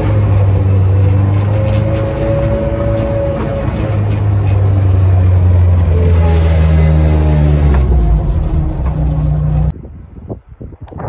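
Turbocharged Toyota 3S-GE BEAMS inline-four in an AE86 running steadily as the car is driven, its pitch rising and falling slightly. The engine sound cuts off abruptly about a second before the end, leaving only faint knocks.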